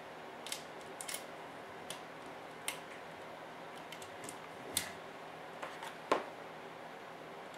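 Scattered small clicks and taps of hands handling screws and parts while fitting a spring hanger to an RC truck chassis, with a sharper knock about six seconds in.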